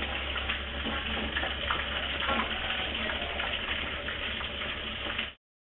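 Chicken pieces frying in oil in a wok, a steady sizzle with a few light clicks of a metal skimmer against the pan. The sound cuts off suddenly near the end.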